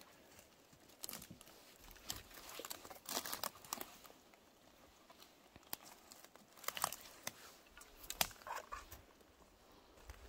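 Faint, irregular crunching and crackling of dry forest litter (needles, twigs and duff), with scattered sharp snaps coming in small clusters.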